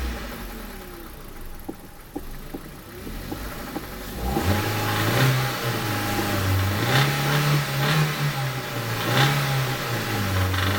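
Kia Rio's 1.6 Gamma four-cylinder petrol engine, quieter for the first few seconds. About four seconds in it runs up again and is revved in three short blips, with sharp metallic knocks showing through; this is the metallic engine knock the owner is recording.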